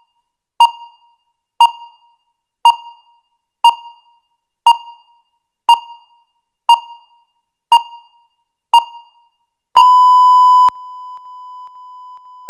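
Countdown timer's electronic beeps, one short pip each second, nine in all, then a long loud buzzer tone about ten seconds in signalling time's up, which drops after about a second to a fainter steady tone.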